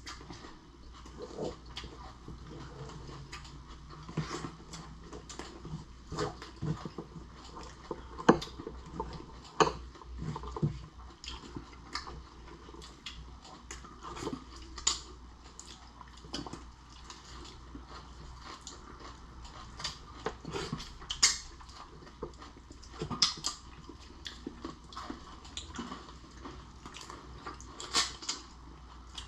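Close-up eating sounds from someone eating lobster and shrimp: chewing and mouth smacks with scattered sharp clicks and taps at an irregular pace.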